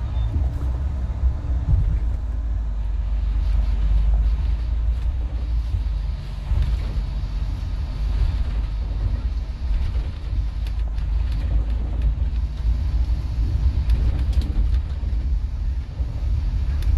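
Steady low rumble of a double-decker coach on the move, engine and road noise running without a break.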